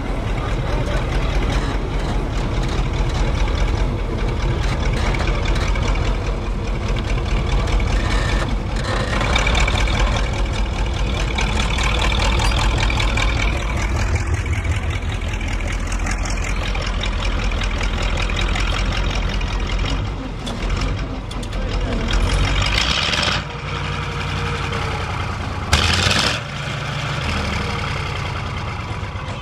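Engine and tracks of a tracked military all-terrain carrier running steadily as it crawls along, a continuous low rumbling note. The low engine note drops about 23 s in, and two short, loud noise bursts come near the end.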